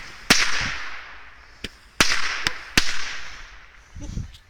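Consumer fireworks from a multi-shot firework going off in a string. There are sharp bangs about every half second to a second, the bigger ones trailing off in a fading crackling hiss, then a dull low thump near the end.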